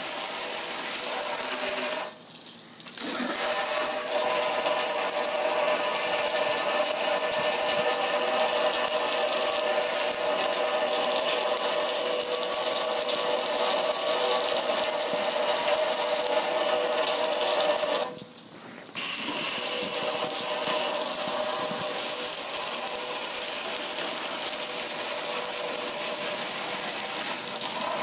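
Pressure washer spraying a steady jet of water onto a metal gas grill: a constant hiss of spray with a steady pump hum beneath. Both stop for about a second twice, shortly after the start and about two-thirds of the way through, then resume.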